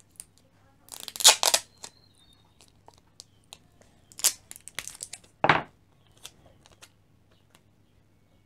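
Clear sticky tape pulled off the roll with a rasp and torn, then more tape tearing and crinkling as it is worked onto a pencil and paper: a long rasp about a second in, two shorter tears around four and five and a half seconds in, and small taps and clicks between.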